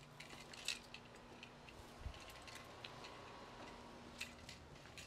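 Near silence: a quiet background with a faint steady hum and a few faint, scattered clicks and taps, one low thump about two seconds in.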